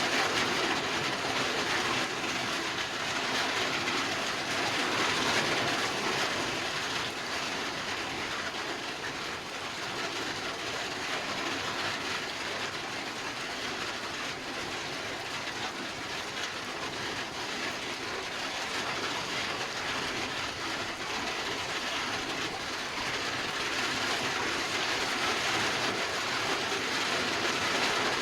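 Heavy rain falling in a steady, dense hiss, easing slightly in the middle and building again near the end.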